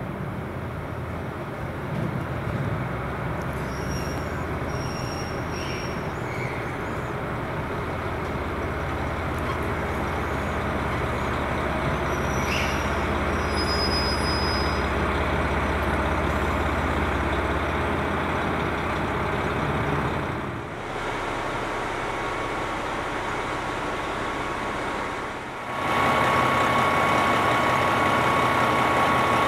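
Diesel railcar engines running at a station platform: a steady engine rumble, then, after two short breaks, an engine idling with a constant high whine.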